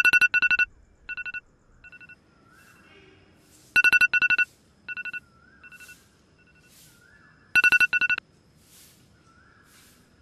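Mobile phone ringing with a high electronic beep: a burst of rapid beeps about every four seconds, three times, each trailed by fainter echoing repeats.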